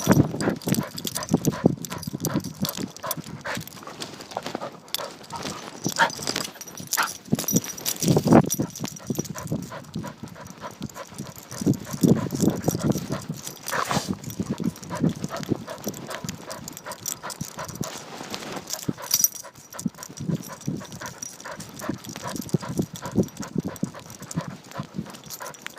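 Irregular knocking, bumping and rubbing from an iPhone strapped to a dog's harness as the dog moves about, with the dog's own sounds close to the microphone.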